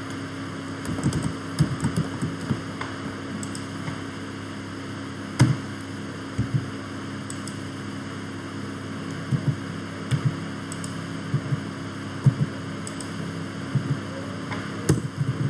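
Scattered computer keyboard taps and mouse clicks, irregular and a second or so apart, over a steady low electrical hum.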